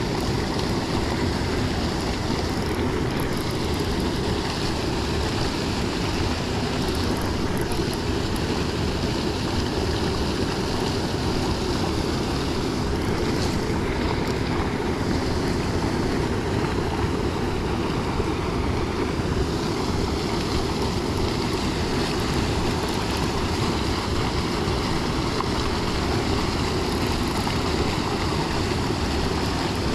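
Steady wind noise on the microphone over moving river water.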